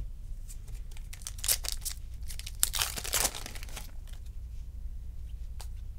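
Trading cards and their plastic or foil being handled: a run of rustling, crinkling and scraping clicks, busiest in the middle.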